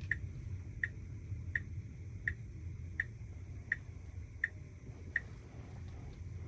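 Tesla Model Y's turn-signal indicator ticking inside the cabin, eight even ticks at about three every two seconds, stopping a little after five seconds in, over a low steady road rumble.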